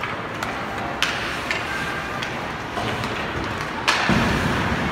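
Ice hockey game sounds in an arena: sharp knocks of sticks and puck over a steady rink din. The loudest crack comes a little before the end, and the din swells after it.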